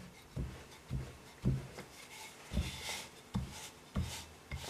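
Wooden rolling pin rolled back and forth over croissant dough on a work surface, a soft low thud with each stroke, roughly every half second, with light rubbing between.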